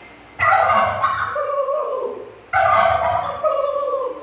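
A recording of a turkey gobbling: two long, rough gobbles, each about a second and a half long, with another starting right at the end.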